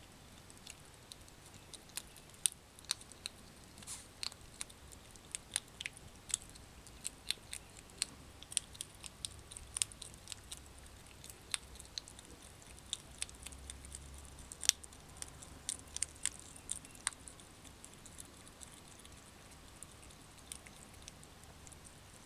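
A hedgehog chewing, an irregular run of sharp smacking clicks that thins out after about 17 seconds.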